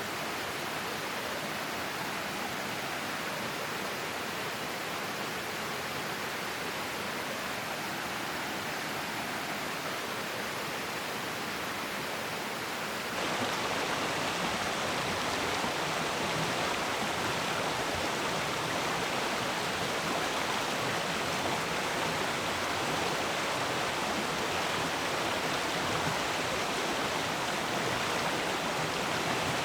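Clear forest stream flowing, a steady rush of water that turns abruptly louder about thirteen seconds in.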